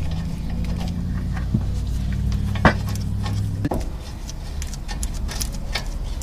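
Scattered metallic clicks and clinks of hand tools and brake hardware, with one sharper click partway through, over a steady low hum that cuts off abruptly a little before the end.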